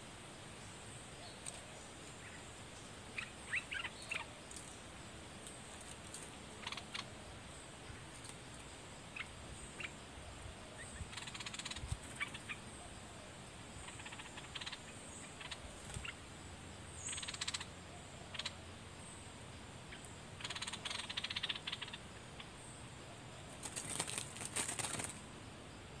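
Bulbuls in a territorial face-off at a trap cage, giving short sharp chirps and several bursts of harsh rattling chatter. A loud flurry of wingbeats and scuffling on the cage comes near the end.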